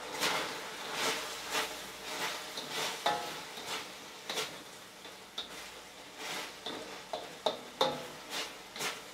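Spatula scraping and turning chicken and green onions in a metal wok, in irregular strokes roughly once a second, over a steady frying sizzle.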